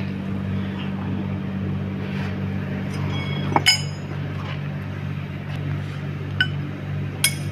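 Sharp metallic clinks of steel pipe pieces and a line-up clamp being handled and adjusted. There are two close together about halfway through and two more near the end, each ringing briefly. A steady low machine hum runs underneath.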